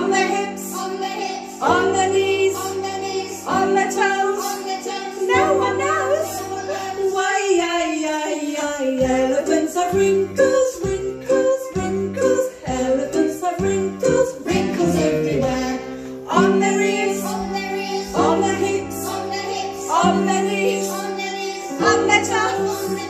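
Recorded children's action song playing: bouncy backing music with singing. About seven seconds in, a long falling glide in pitch runs over about two seconds.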